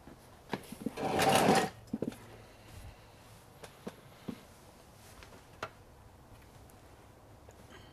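Scattered short clicks and knocks of a person moving about and handling things, with one louder scraping rustle about a second in.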